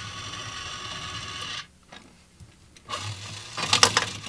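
Toy claw machine's small electric motor whirring steadily as it carries the claw, stopping about a second and a half in. Near the end comes a short clatter of plastic as the claw releases and a small plastic figure drops into the prize chute.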